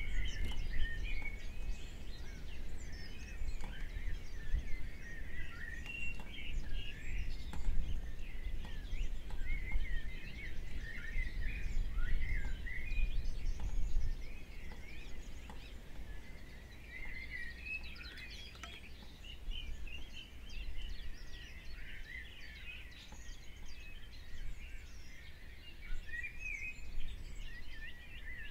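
Small birds chirping and twittering in many quick, overlapping calls, over a low background rumble that eases off about halfway through.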